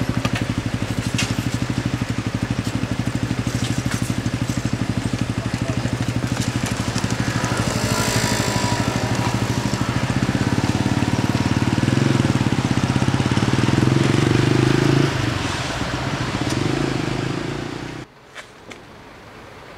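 A combustion engine running with a fast, even low throb. It grows louder, then drops sharply about fifteen seconds in, and the sound falls away abruptly near the end.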